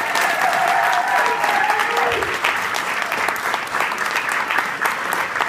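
Audience applauding a finished performance, dense steady clapping; a few held tones sound over the clapping in the first two seconds.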